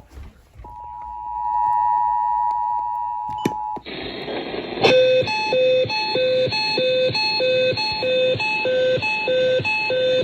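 EAS two-tone attention signal, a steady paired tone held for about three seconds, which cuts off abruptly. Then comes a hissy radio feed carrying an electronic alert beep that repeats about twice a second, the alarm that heralds the next warning.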